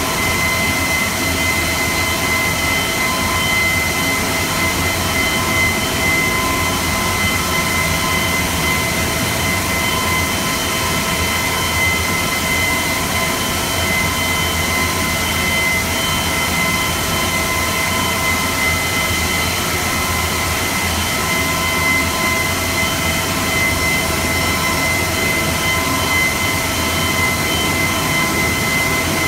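Jolly 2000 CNC stone-cutting machine running: a steady industrial hum with a constant high whine made of several fixed pitches, unchanged throughout.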